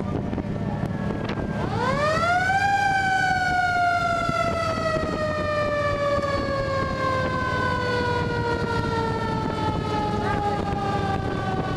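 Fire truck siren winding up about two seconds in, then slowly falling in pitch over the following nine seconds, over the steady rumble of the moving truck and wind on the microphone.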